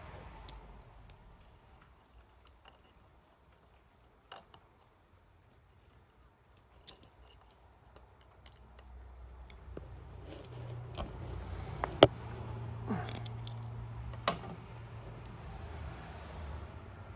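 Wiring hand tools and small connector parts being handled: scattered light clicks and ticks, then several sharp snips or snaps, the loudest about twelve seconds in, over a low hum that starts about ten seconds in.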